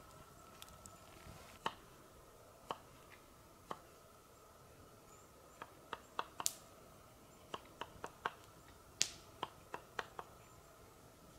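Wood campfire crackling, with sharp irregular pops that come thicker in the second half.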